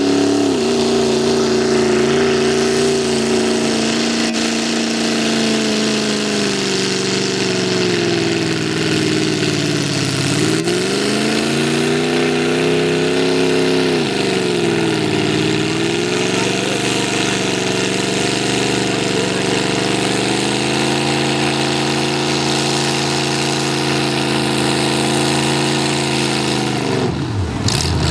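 A vehicle engine running steadily, its pitch sagging and picking back up twice, about ten and fifteen seconds in, with a sudden change to a different engine sound near the end.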